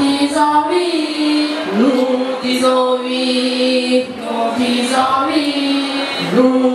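A woman singing into a hand microphone, holding long notes with short upward slides between them.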